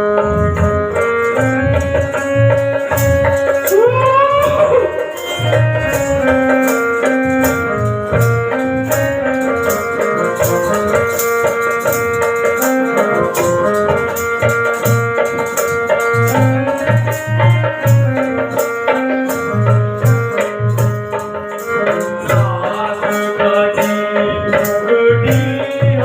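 Instrumental music: sustained chords over a quick rattling percussion beat and a low drum. A sliding, rising tone sounds about four seconds in and again near the end.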